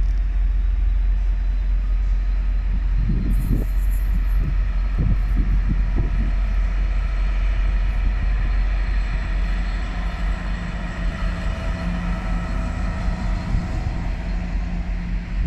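Freightliner diesel freight locomotive running as it approaches and passes on the far track, its engine drone growing from about halfway through. Wind rumbles and buffets the microphone.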